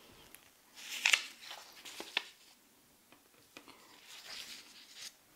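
Soft rustling and light ticks of hands brushing and handling stretched embroidery fabric, with louder brushes about a second in, near two seconds, and again around four to five seconds.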